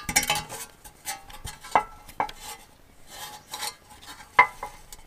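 Hands handling a recoil starter's plastic pulley and metal shroud: irregular scraping and rattling with a few sharp clinks of plastic and metal parts.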